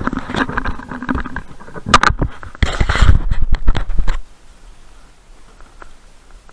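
Handling noise on a head-mounted GoPro's microphone: loud, irregular rubbing, scraping and knocking as the camera is fitted and moved about, stopping suddenly about four seconds in and leaving a faint background.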